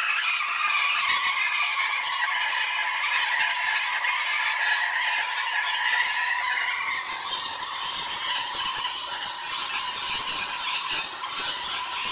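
ZVS-driven spark-gap Tesla coil firing continuously at a high break rate: a steady, harsh, crackling buzz from its arcs and spark gap, getting louder about halfway through.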